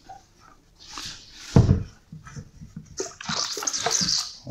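Boiling water sloshing inside a small oak barrel as it is tipped and rocked, with a loud wooden knock about a second and a half in. From about three seconds in, a strong hiss of steam escaping past the bung, the first burst of pressure from the hot water heating the air inside the sealed barrel.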